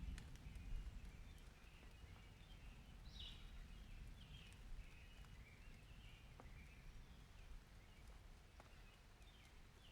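Faint summer-storm ambience: birds chirping over a low rumble that is strongest in the first second, with a few faint clicks.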